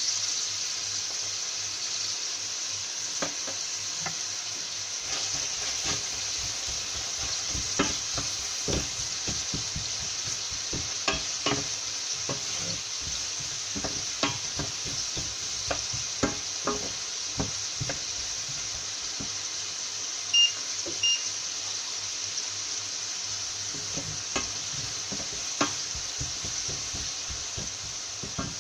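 Sliced red onion sizzling steadily in hot oil in a stainless steel frying pan, stirred with a wooden spatula that knocks against the pan now and then. Two short electronic beeps about 20 seconds in.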